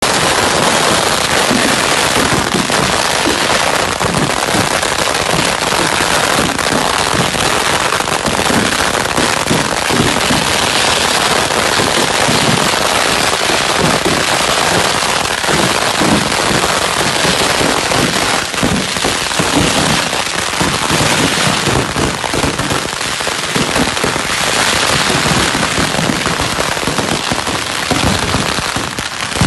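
Ground fireworks display crackling without let-up: a dense, rapid stream of countless small firecracker pops, steady and loud throughout.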